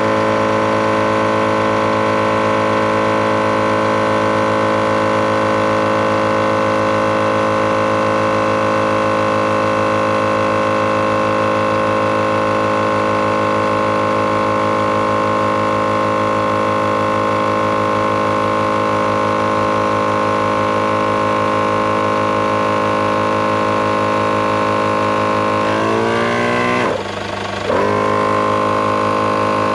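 Thumper Max Dual MkII portable air compressor running steadily under load, inflating a 4x4 tyre, with a constant pitched motor-and-pump hum. Near the end it slows, stops for less than a second, and starts again with its pitch climbing back up.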